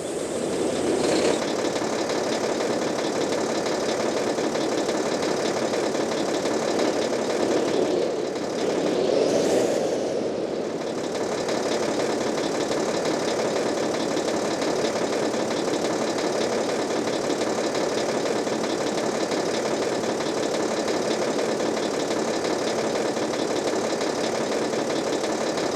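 Bus diesel engine idling steadily, briefly louder about nine seconds in.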